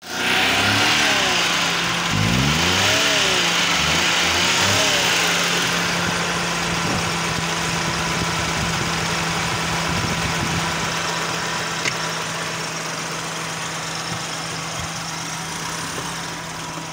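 Daihatsu Cuore car engine, revved up and down several times in the first five seconds, then idling steadily.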